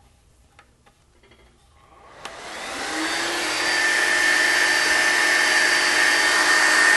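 The cooling fan in the airgun compressor's power-supply converter starts up as the unit is plugged in. A click about two seconds in, then a whir that swells over a second or two and settles into a steady hum with a high whine.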